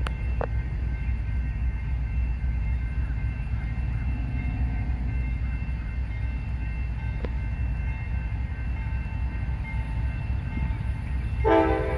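Steady low rumble of an approaching diesel freight train led by a GE AC44 locomotive, with a short blast of its chime horn about eleven and a half seconds in.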